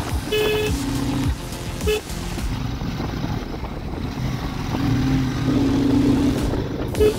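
Short, high vehicle-horn toots, one just after the start, another about two seconds in and one near the end, with lower steady tones between them. Beneath them runs the motorcycle engine and road noise.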